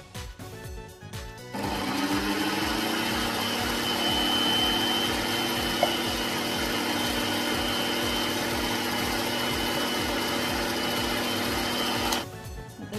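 Electric hand mixer on its stand whipping cream in a glass bowl: the motor starts about a second and a half in, runs steadily with a hum and a high whine, and cuts off near the end. Background music with a steady beat plays throughout.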